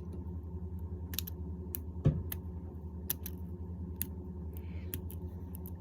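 Irregular small, sharp clicks and taps of hand tools and loose parts on an opened iPhone XS Max during screen removal. About two seconds in there is one louder, duller knock. Under it all runs a steady low electrical hum.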